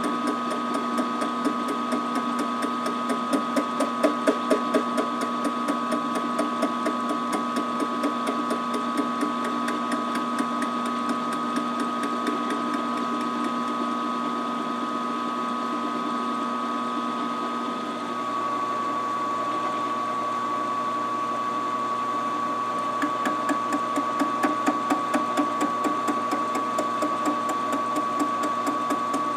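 Round column milling machine running a homemade single-tool fly cutter across the cast-iron flange face of a Cummins 5.9 exhaust manifold, milling it flat. The motor's steady whine runs under a fast, even ticking of the cutter's interrupted cut, which grows louder at times; the whine shifts slightly about two-thirds of the way through.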